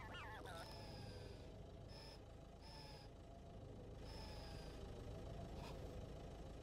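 Animated robot's electronic sound effects: a wavering chirp that falls in pitch over the first half second, then several short high-pitched beeps, over a low steady hum.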